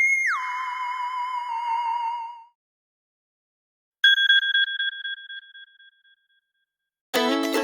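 iPhone alert tones. An electronic tone drops sharply in pitch with a slight wobble and fades out. About four seconds in, a single bell-like chime rings out, and near the end a plucked-string tune begins.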